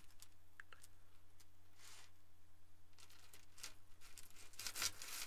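Faint scattered clicks and soft rustles of small stainless steel rings and pliers being handled during chainmail weaving, over a steady low hum.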